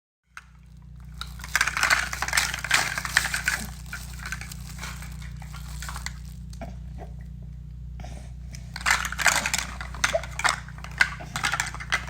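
Two spells of crackling, crinkling rustle, a couple of seconds each, over a steady low hum.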